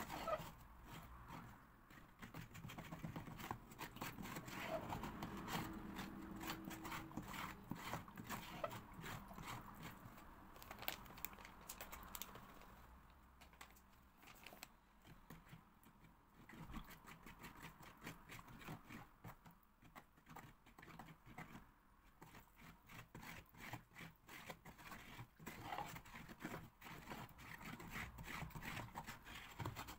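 Metal spoon stirring a stone-powder casting mix in a plastic tub, making quick repeated scrapes and taps against the tub, with a lull of a few seconds near the middle.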